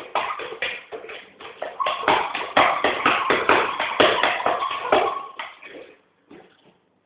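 A pit bull's claws scrabbling and tapping rapidly on a ceramic shower tray as it paws at the surface, a fast run of sharp clicks that thickens in the middle and stops about a second before the end.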